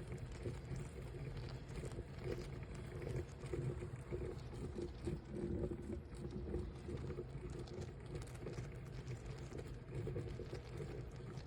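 Electric coffee percolator perking: water bubbling and gurgling up through the stem in an irregular, continuous burble over a low hum.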